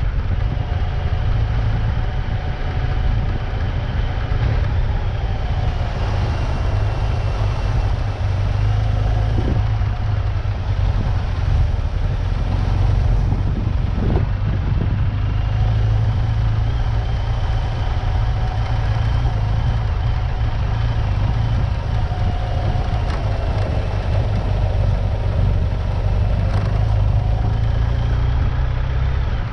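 Off-road vehicle engine running while driving, its pitch rising and falling gently, over a steady low rumble, with a couple of brief knocks.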